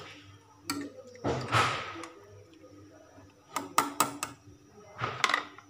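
Metal ladle stirring chicken pieces in liquid in a stainless steel saucepan: a few swishing scrapes and sharp clinks of the ladle against the pot, three in quick succession about three and a half seconds in.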